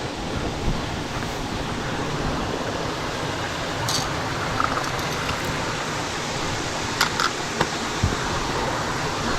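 Steady rushing of water flowing through a small spillway, with a few light clicks and knocks over it near the middle and toward the end.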